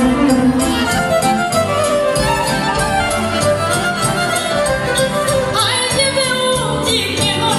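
Live band playing lively Romanian folk dance music of Maramureș, with a fiddle leading over a steady beat. A woman's singing voice comes in about three quarters of the way through.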